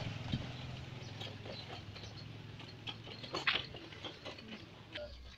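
Faint clicking and pattering of a loaded hand cart rolling over a dirt road and footsteps, with a low engine hum fading out over the first second or two.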